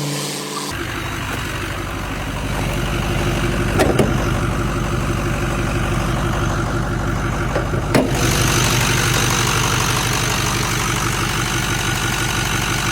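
Ford 6.0 Power Stroke V8 turbodiesel in a dump truck, running steadily at operating temperature, with two brief sharp clicks.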